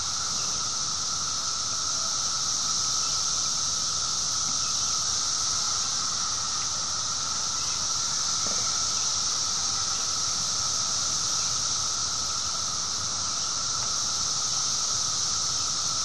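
Chorus of 17-year periodical cicadas: a steady, unbroken, high-pitched drone with a lower, fainter steady tone beneath it.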